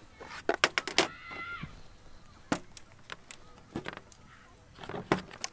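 Sharp clicks and knocks of tubular legs being handled and pushed into the sockets of a tray stand, in irregular bursts, with a cluster about half a second in and single knocks later. A brief high squeak sounds about a second in.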